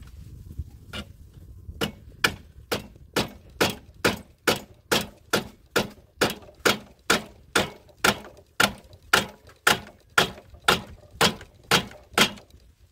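Hammer striking wood on a treehouse's plank wall: a steady run of about two dozen sharp blows, two a second, faint at first and then louder.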